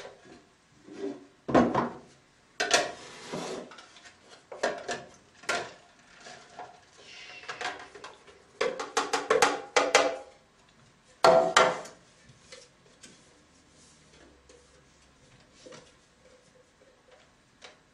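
Juicer pulp containers knocking and clattering against clear plastic tubs as carrot pulp is tipped and tapped out of them: irregular knocks and rattles in clusters, including a quick run of taps about nine seconds in and the loudest knock a little after eleven seconds.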